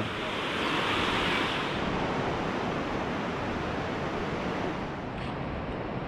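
Shallow mountain stream rushing over stones, a steady noise of flowing water.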